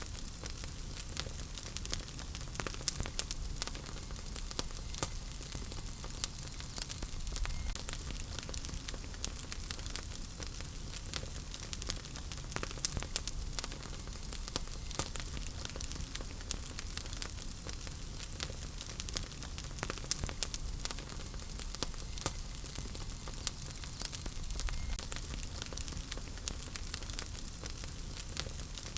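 Wood fire crackling in a fireplace: a steady hiss with many irregular sharp pops and snaps from the burning logs, over a low rumble of the flames.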